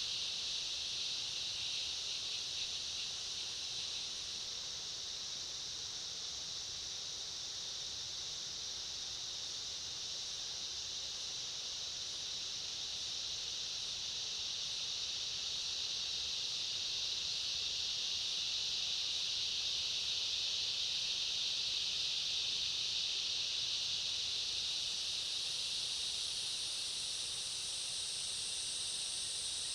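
Dense insect chorus: a steady high-pitched buzzing hiss. A second, higher-pitched layer joins it near the end.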